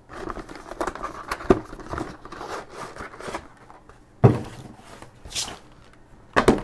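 Cardboard phone box being torn open along its zip strip, a rough tearing rustle, followed by handling of the box and its plastic tray with one sharp knock just after four seconds.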